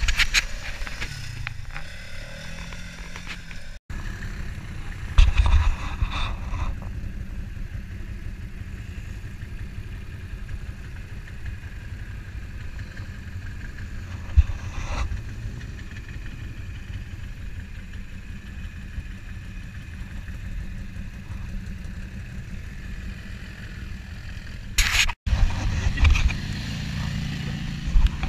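Off-road quad and side-by-side engines running as a low, steady rumble, with louder bursts about five seconds in and again near the end.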